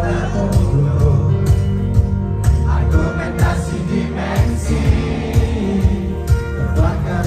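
Live band music heard from the audience: a singer's voice carrying a melody over acoustic guitar and drums, with a heavy low end and a regular drum beat.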